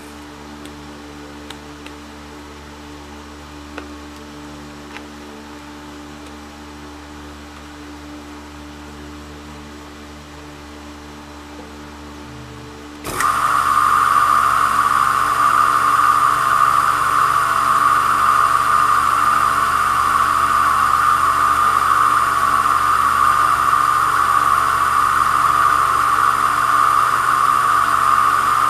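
Small cue-repair lathe switched on about halfway through, then running with a loud, steady whir while it spins a freshly trimmed leather cue tip for burnishing. Before that, only a faint hum and a few small clicks.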